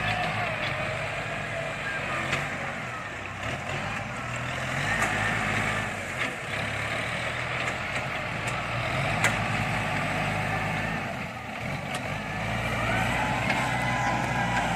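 Kubota tractor diesel engine running under load while working a field. Its level swells and eases a few times, with a few sharp knocks.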